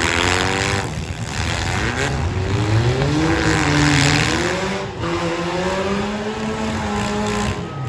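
Four-cylinder demolition derby car engines revving hard, their pitch rising and falling over a constant rumble.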